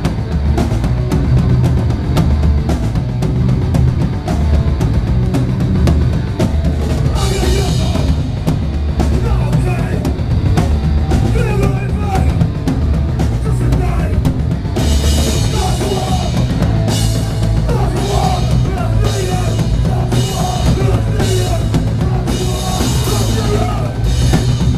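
A live hardcore punk band playing, with the drum kit up front in the mix: a steady beat of bass drum and snare under electric guitar. The cymbals wash in brighter about seven seconds in and again from about fifteen seconds on.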